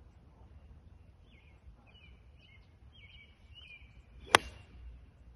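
A golf ball struck once with a 52-degree wedge: a single sharp crack about four seconds in, with birds chirping faintly before it.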